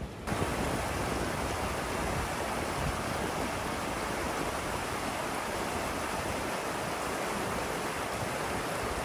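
Shallow mountain stream rushing over rocks and small rapids, a steady full rush of water that cuts in suddenly just after the start.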